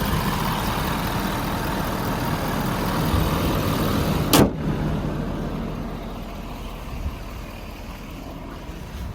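An engine idling steadily. A sharp clack comes about four and a half seconds in, after which the running sound dies away gradually.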